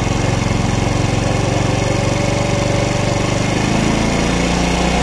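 A 50cc GY6-type scooter engine idling on a newly fitted carburetor while its idle-speed screw is turned up. The engine note shifts about three-quarters of the way through as the idle rises.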